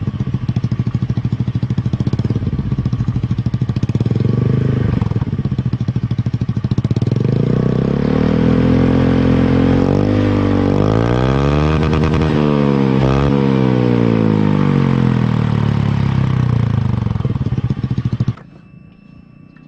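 Honda Beat scooter's stock single-cylinder engine running through a Black Devil aftermarket racing exhaust. It idles, is revved up about halfway through with several rises and falls in pitch, settles back to idle, and is shut off suddenly near the end.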